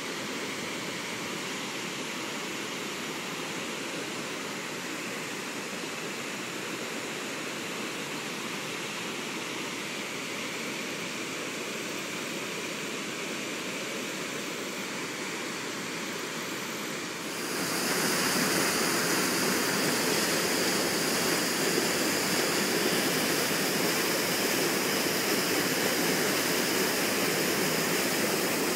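Steady rushing of storm water in a hurricane. About 17 seconds in it gets suddenly louder and brighter, and stays that way.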